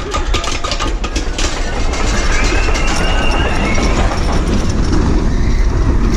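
Suspended roller coaster train running along its track, recorded from on board: rapid clicking in the first second and a half, then a steady rush of wheel and wind noise with heavy wind rumble on the microphone, and a faint whine that rises and falls in the middle.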